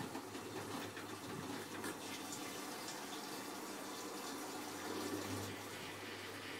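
Samsung washing machine with water rushing in and splashing, over a steady low hum from the machine.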